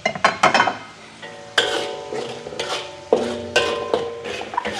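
Metal spatula scraping and clanking against an aluminium wok while stirring a frying spice paste, the wok ringing briefly after each strike, with a soft sizzle underneath.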